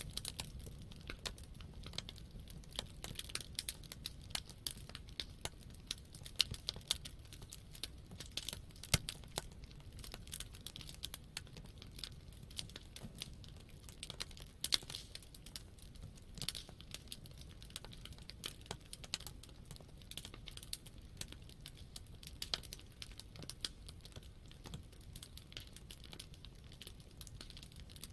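Wood campfire burning, crackling and popping irregularly several times a second over a low steady rumble.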